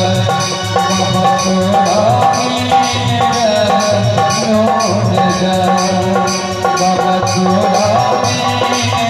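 Music with a steady percussive beat and a wavering lead melody.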